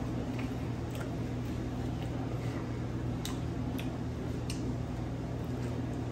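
A person eating: scattered small clicks of chewing and mouth sounds, with a light tap of cutlery, over a steady low room hum.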